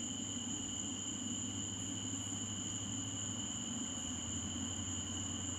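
Night insects trilling steadily in two constant high tones, over a low, steady rumble.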